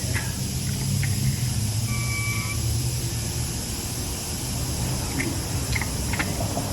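Steady low machine hum with a band of high hiss, a short high squeal about two seconds in, and a few light clicks.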